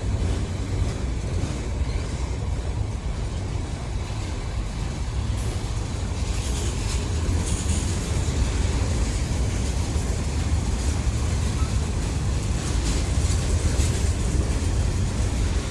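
Freight train rolling past, a steady low rumble of wheels on rail, with a faint hiss higher up partway through.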